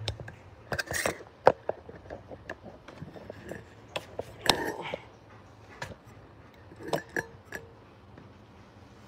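Handling noise close to the microphone: irregular knocks, taps and light clinks as things are moved about, with no steady machine sound.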